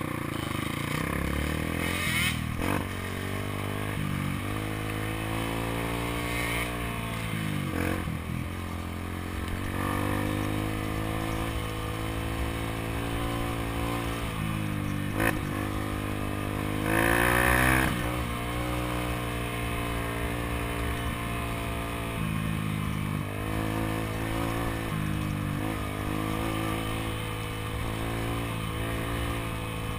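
Dirt bike engine running along a trail, its pitch rising and falling over and over as the throttle opens and closes through the gears, with clatter and scraping from the bike over rough ground. A brief, louder rush of noise comes about seventeen seconds in.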